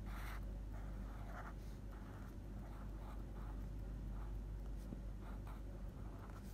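Faint scratching of a pen tip on lined notebook paper, a series of short, irregular strokes as a word is hand-lettered, over a steady low hum.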